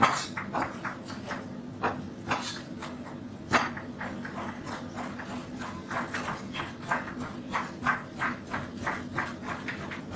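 Two large knives hand-mincing meat on a cutting board, a quick, uneven run of chopping knocks, several a second, over a steady low hum.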